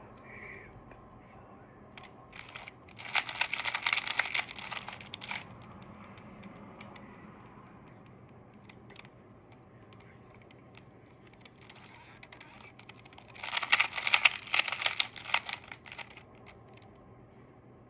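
2x2 Rubik's cube being turned quickly: two bursts of rapid plastic clicking and rattling as the layers are turned, about three seconds in and again near the end, with only a few faint clicks between.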